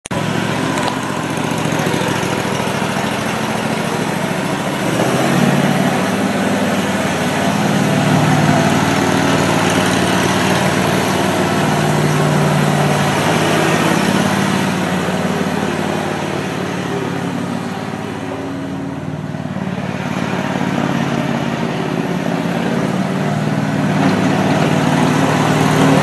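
Riding lawn mower's engine running steadily as the mower is driven. It grows quieter about two-thirds of the way through and louder again near the end.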